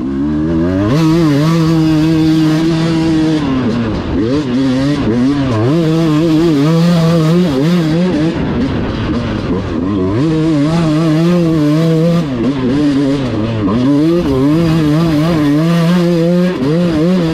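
Dirt bike engine running hard at high revs: the pitch holds steady, then drops and climbs again several times as the throttle is rolled off and back on.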